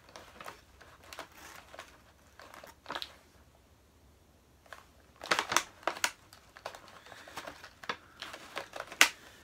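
Plastic action-figure packaging crinkling and rustling in the hands in short, irregular bursts, with small clicks, as the figure is worked free of its tray and wire twist ties. It is busiest a little past halfway, with a sharp crackle near the end.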